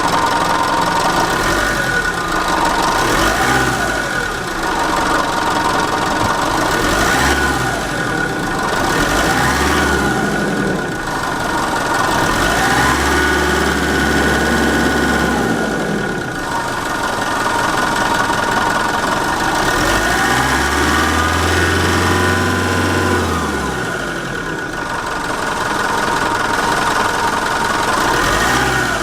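Mitsubishi Fuso Canter's 4P10 four-cylinder diesel engine idling, with the throttle blipped up and back down about six times, two of them held longer. It runs with no abnormal noises.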